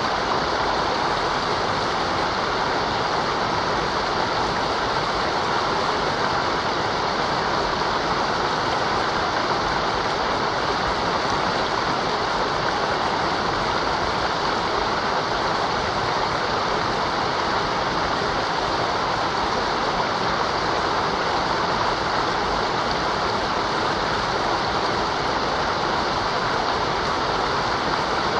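Mountain river running: a steady, even rush of water.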